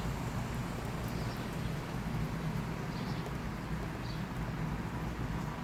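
Steady rain falling, an even hiss of drops with a low rumble underneath and a few faint high chirps.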